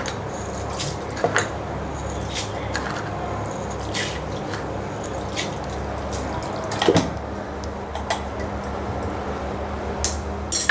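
Scattered light clicks and taps of a spoon against a mixer-grinder jar as sugar is spooned into the mango and milk, with a few louder knocks about seven seconds in and near the end, over a steady low hum.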